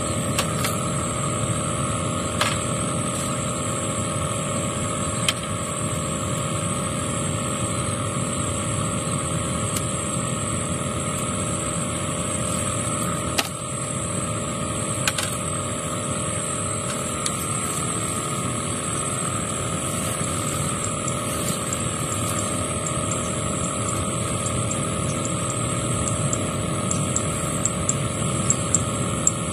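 A steady mechanical hum like a motor running, with a constant high whine above it and a few light clicks near the end.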